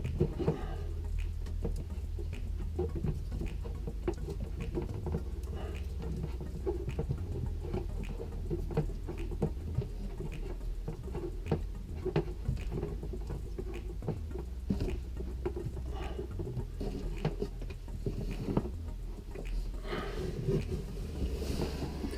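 Scattered light clicks and scratching from hands handling wires and tape while the wires are taped together, over a steady low hum.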